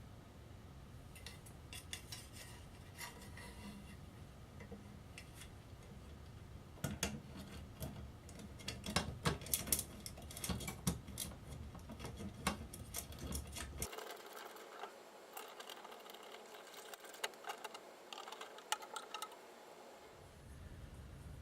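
Scattered metal clicks, clinks and light clatter of ceiling fan mounting hardware being handled, busiest in the middle. The low background hum drops out about two-thirds of the way through.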